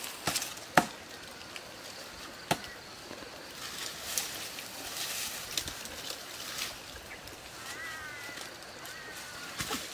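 Leaves and twigs rustling and snapping as a person climbs a leaning tree and pulls at its leafy branches, with two sharp snaps in the first few seconds. A bird chirps a few times near the end.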